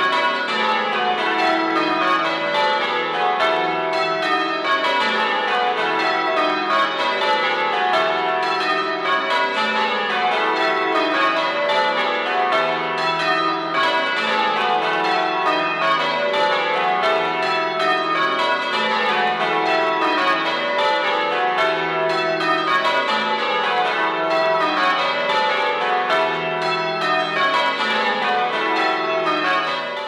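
A ring of ten church bells, cast as a complete ring by Taylors of Loughborough in 1948, being change rung, the bells swinging full circle. It is a steady, unbroken stream of strikes in rows that run down in pitch, one row after another.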